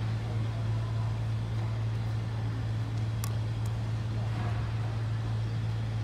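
Steady low drone of a ship's engine over a faint background hiss, with a couple of brief high clicks about three seconds in.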